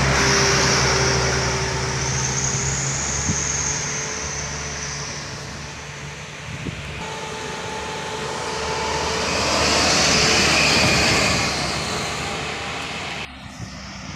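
Road traffic passing close: a loaded sugarcane truck's diesel engine and a car go by at the start, the engine drone fading over the first few seconds. Another vehicle then swells past around ten seconds in and fades away. The sound drops suddenly near the end.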